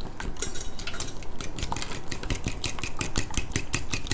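Eggs being beaten in a bowl: a utensil clicking against the bowl in a quick, even rhythm of several strokes a second.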